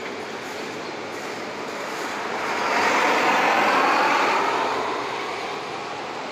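Road traffic noise, rising to a louder rush as a vehicle passes about two and a half seconds in, then easing off.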